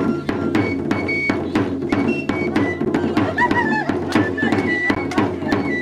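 Traditional drum and flute music playing for a masked street dance: a steady drum beat of about three to four strokes a second under short, high held piping notes.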